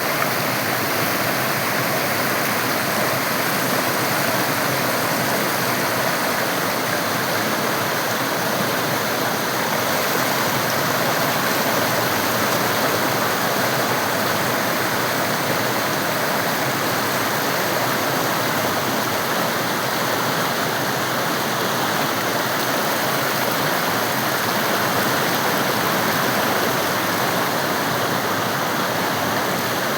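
Mandakini River water flowing, a steady, even rush of running water.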